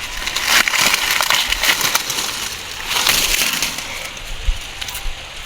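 Dry maize plants crackling and snapping in many small cracks as cobs and stalks are handled during a hand harvest.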